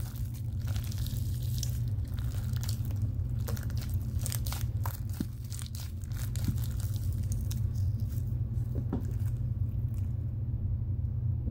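Fluffy slime being kneaded and mixed by hand, giving irregular sticky crackles and pops, busiest in the first half, over a steady low hum.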